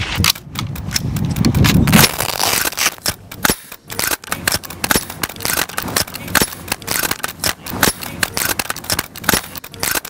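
Rifles firing in a rapid, irregular string of sharp cracks, several shots a second. A low rumble lies under the shots for the first two seconds.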